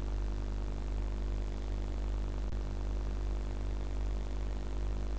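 Steady low electrical hum with a buzz of overtones over faint background hiss, unchanging throughout.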